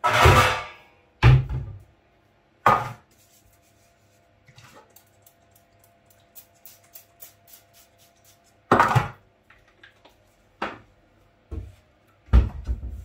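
Kitchen clatter: a metal baking tin and utensils knocked and set down on a worktop, several sharp clanks spread through the span with faint small clicks in between.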